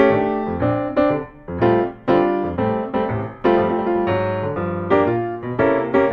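Background piano music: chords and melody notes struck one after another, each ringing and fading.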